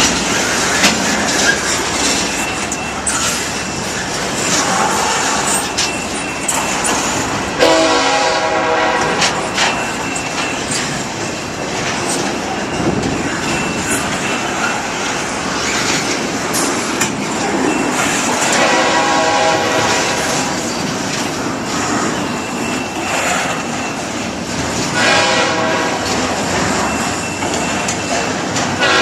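Freight train rolling past with steady wheel-and-rail noise and clickety-clack, while a diesel locomotive's horn sounds three times in blasts of a second or two, several seconds apart.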